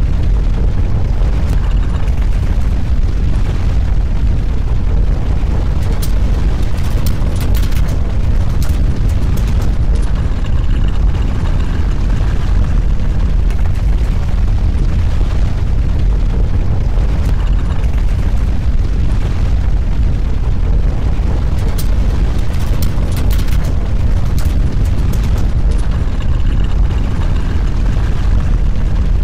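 Deep, steady earthquake rumble sound effect standing in for ground shaking, with faint rattling crackles now and then. The same stretch of rumble repeats about every sixteen seconds, as a loop.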